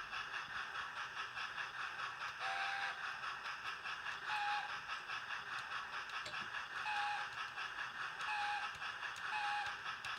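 Steam locomotive sound from a Hornby TTS sound decoder in a model LNER A4, played through the model's small speaker: steady, rhythmic chuffing, with short high-pitched tones recurring every second or two.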